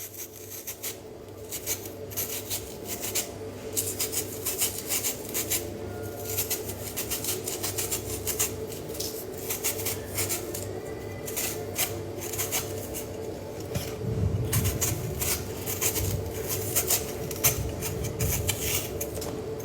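Kitchen food preparation: a knife scraping and tapping irregularly against produce and a cutting board, over a steady low hum.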